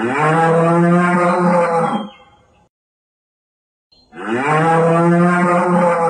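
Two long, steady moos from a bovine, each lasting about two seconds. The second begins about four seconds in.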